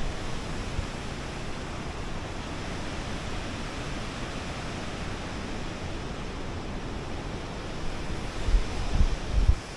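Steady rush of water from the ravine below, an even hiss with no rhythm. Near the end, a few low bumps of wind or handling on the microphone.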